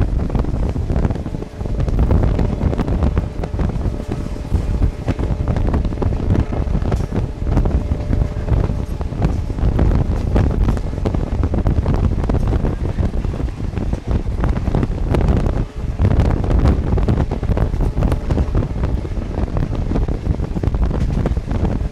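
Rushing wind buffeting the microphone at the open door of a passenger coach travelling at full speed, over the coach's low rumble on the track. The loudness surges and dips unevenly all through.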